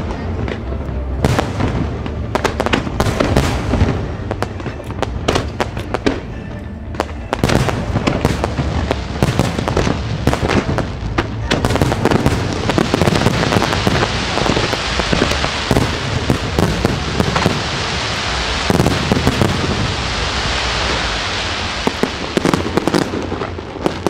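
Aerial fireworks going off in quick succession: a steady run of bangs and pops. From about halfway through, a dense crackling hiss from crackling or glitter shells fills in between the bangs.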